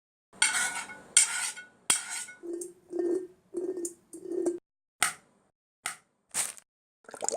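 Kitchen Foley: dishes and cutlery clattering and clinking in a run of separate strokes. Three longer rattles come first, then four shorter, lower strokes, then a few sharp single clinks.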